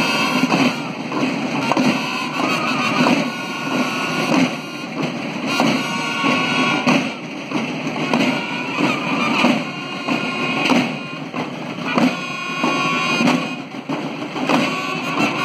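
Mexican banda de guerra (school drum and bugle corps) playing: snare and bass drums beat a march rhythm while bugles sound held notes in phrases that start and stop every second or two.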